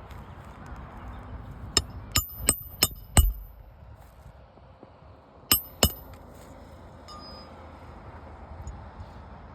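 Hammer striking roofing nails while a replacement asphalt shingle is nailed down: five sharp ringing metal-on-metal blows in quick succession, then two more a couple of seconds later.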